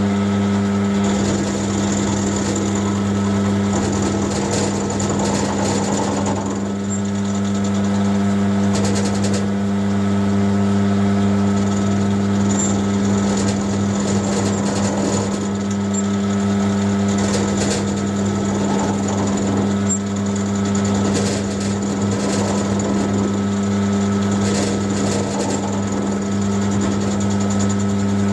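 A mill-drill running with a steady electric-motor hum while a drill bit is fed down into a steel workpiece clamped in its vise, with scraping cutting noise that comes and goes.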